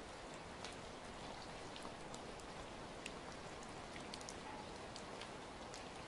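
Steady rain falling, with single drops ticking sharply here and there.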